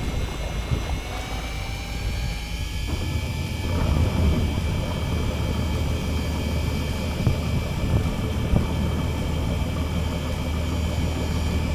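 Fishing boat's engine running steadily, a constant low hum with a thin high whine above it.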